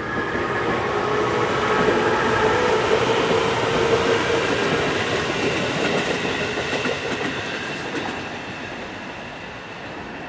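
JR Kyushu 811 series electric train running along the track, its traction motors whining over wheel and rail noise. It is loudest in the first few seconds, then fades as the train moves away.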